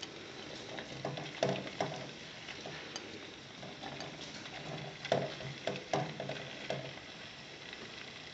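Diced potato, carrot and celery tipped by hand from a plastic bowl into a non-stick pot, landing in irregular soft knocks and rattles, several close together about five to seven seconds in, over a low sizzle of stockfish frying in oil.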